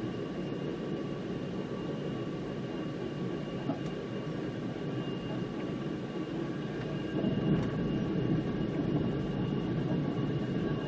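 The Spirit of the Outback passenger train running along the line, heard from inside the carriage: a steady rumble of the wheels on the track with a faint, even hum of tones over it. It grows a little louder about seven seconds in.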